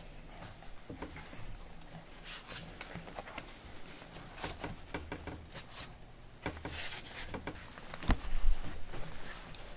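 Small-room ambience: scattered light taps and rustles over a steady low hum, with a low thump and a few knocks near the end.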